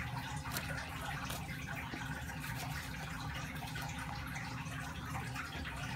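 Steady background hiss and hum, with faint clicks and fabric rustling as the snaps of a baby onesie are pulled open and the onesie is worked off a doll.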